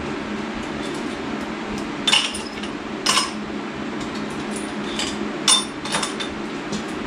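Metal parts of a Chevrolet 283 small-block V8 clinking as they are handled during a hand teardown: about five sharp clinks, loudest about two seconds in and again a little after halfway, over a steady mechanical hum.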